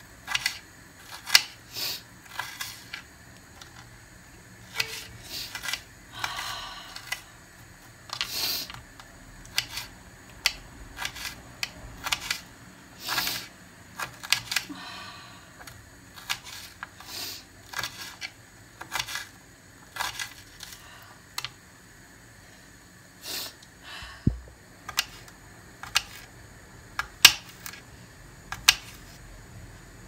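Small kitchen knife dicing an onion on a cutting board: irregular taps of the blade against the board, some with a short crisp crunch of the knife cutting through the onion, with a pause of a couple of seconds before the last few taps.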